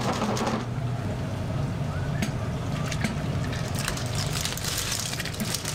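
Water sounds from a kitchen pot: clams boiling in water, and the clams with their cooking liquid poured from a saucepan and splashing into a large pot of broth. A steady watery noise runs throughout, with a few sharp clicks.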